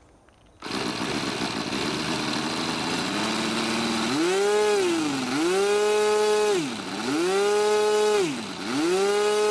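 Model-aircraft rotary (Wankel) engine spun by a handheld electric starter. The cranking noise starts suddenly about half a second in and the engine catches. From about four seconds in the engine is revved up and back down about four times, a smooth whine rising and falling in pitch.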